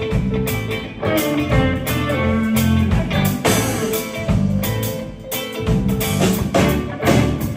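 Live rock band playing an instrumental passage: electric guitars over electric bass and a drum kit keeping a steady beat.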